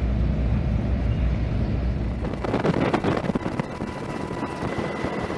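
Engine noise with wind: a heavy low rumble that changes, about two seconds in, to a hissier drone with a thin steady whine on top.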